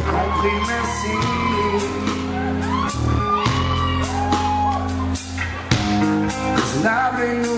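Live band playing in a large hall: drum kit, bass and electric guitar, with singing over the music.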